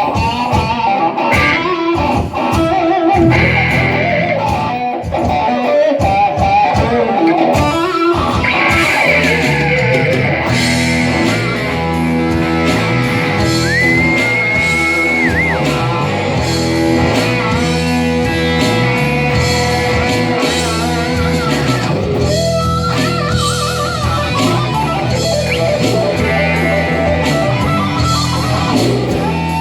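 Live rock band music led by electric guitar. Quick lead runs play over light backing at first, then about a third of the way in the bass and full band come in, with a long held high guitar note near the middle.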